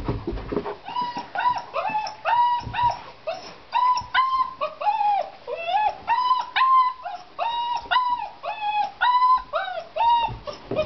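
German shepherd puppy whining over and over in short, high-pitched calls, about three a second.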